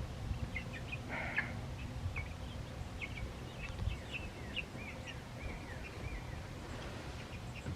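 Birds chirping: many short high chirps, some sliding in pitch, scattered throughout, over a low background rumble.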